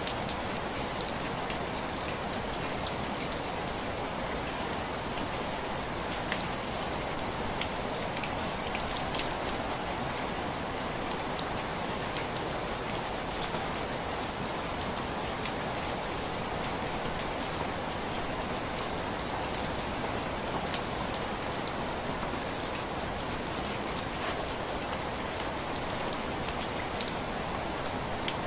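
Steady rain striking window glass: an even hiss with scattered sharp ticks of single drops.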